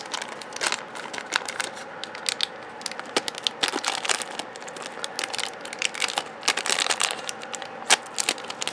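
A small shiny plastic blind-bag packet crinkling and tearing as it is pulled open and handled, an irregular run of sharp crackles with a louder snap near the end.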